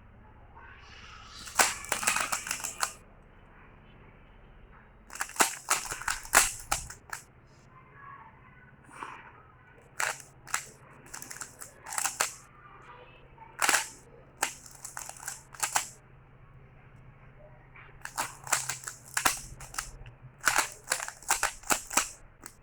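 Rubik's Cube being turned by hand: quick runs of plastic clicks and clacks as the layers snap round, in bursts of a second or two with short pauses between them.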